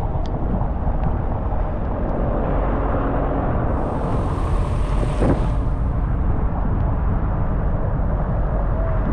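Car driving on a rain-wet road: steady low rumble of the road and engine with tyre noise, and a high hiss that swells for about two seconds midway.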